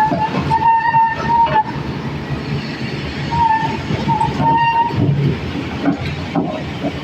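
Excavator working: a heavy engine rumble with a high-pitched whine that comes on twice, once in the first second and a half and again around the middle.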